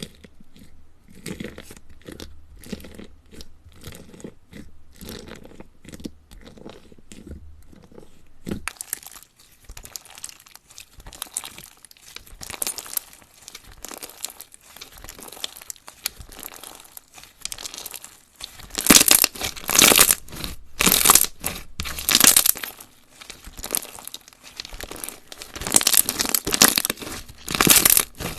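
Crunchy 'cracker' slime being pressed and squished by hand, crackling and popping with each push. Light, evenly paced presses at first, then denser crunching that grows loudest in the last third.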